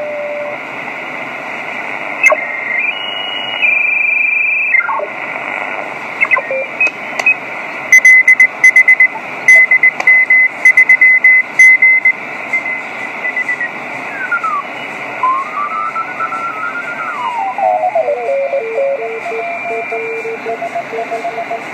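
Elecraft KX3 shortwave transceiver receiving the 40 m band on lower sideband: a hiss of band noise with steady heterodyne whistles. About eight seconds in, a tone is keyed on and off in quick, loud pulses with clicks. After that, a whistle slides in pitch as the receiver tunes across a signal, and near the end two tones alternate.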